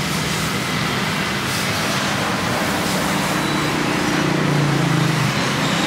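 Steady street traffic noise with engines running, one engine growing louder about four seconds in.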